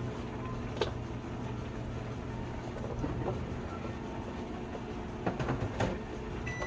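A steady low hum with a faint hiss underneath. Over it come light clicks and knocks as a plastic food container and a small dish are handled on the counter: one about a second in, and several close together near the end.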